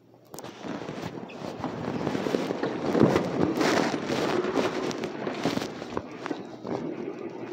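Audience applauding: clapping breaks out suddenly, swells for a few seconds, then slowly tapers off.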